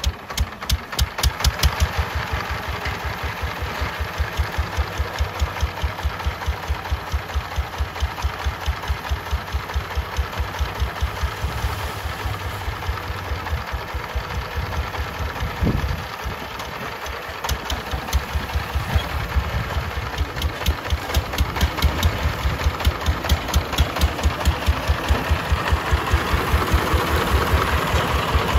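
Single-cylinder diesel engine of a công nông farm truck running with a fast, steady thumping beat. The beat drops out for a moment about sixteen seconds in, then picks up again and grows louder toward the end.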